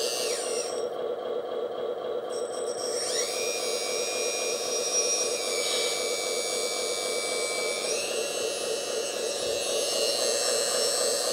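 Electric hydraulic pump of a LESU RC hook-lift truck running steadily with a fast pulsing hum as the hook-arm cylinders roll the crane bucket off the back. A high whine over it drops in pitch about half a second in, climbs back about three seconds in, and shifts again near the end as the load on the pump changes.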